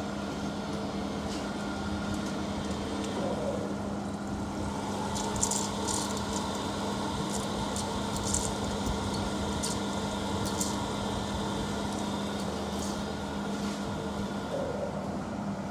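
Wire-cut EDM machine running mid-cut: a steady hum with a constant low tone and a fainter higher whine, and a run of scattered sharp ticks in the middle.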